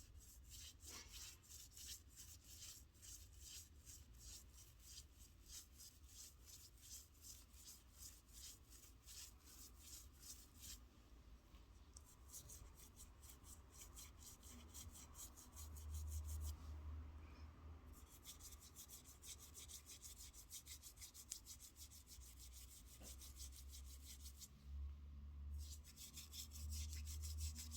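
Toothbrush bristles scrubbing in quick, rapid back-and-forth strokes, faint, in several bouts with brief pauses between them. Now and then a low rumble comes in under the scrubbing.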